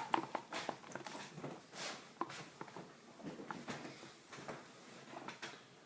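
Spoon stirring runny homemade slime in a container: irregular light clicks and soft wet smacks as the glue, paint and activator mixture is worked, still soupy.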